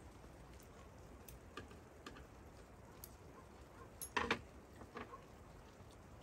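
Light tableware handling: faint scattered ticks, then a small ceramic cup set down on the table with a short double clack about four seconds in, and a softer knock just after.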